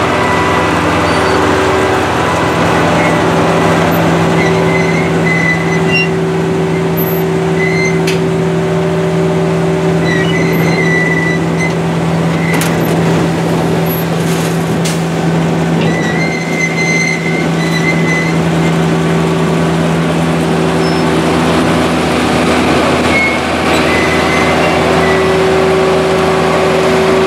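Heavy machinery running steadily as a Kenworth dump truck tips its bed of corn silage into a Balzer silage deck: a constant engine hum, with short high squeals now and then.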